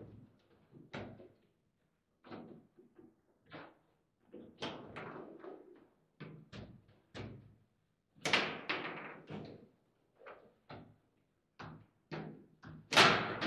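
Table football in play: the ball being struck by the players' figures and the rods knocking against the table, an irregular run of sharp knocks and bangs, the loudest about eight seconds in and near the end.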